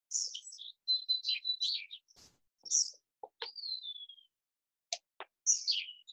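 Wild songbirds chirping and singing: a quick run of high chirps, then about three and a half seconds in a clear whistled note that slides down in pitch, and more chirps near the end.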